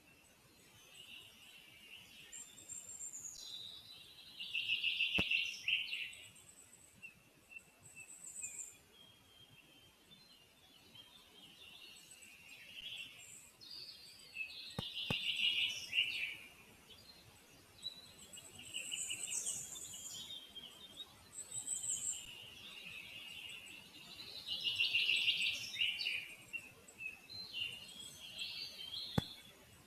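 Songbirds singing in the surrounding forest, a phrase of a second or two coming every few seconds over a faint background hiss, with a few faint sharp ticks.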